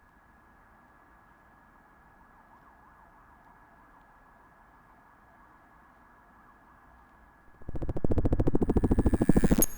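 Electronic fixed-media music: a faint steady hum with a thin high tone, then, about seven and a half seconds in, a loud rapid pulsing buzz for about two seconds that cuts off sharply, leaving high thin tones ringing.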